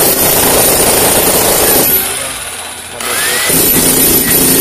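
Electric jackhammer running with rapid hammering. It dies away about two seconds in and starts again a second later as the trigger is worked. This is its final test after a switch fault, cured by tapping the stuck switch.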